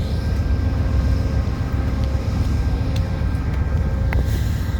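Via Rail passenger train's diesel locomotive running steadily at a standstill, a continuous low rumble, with a few faint clicks.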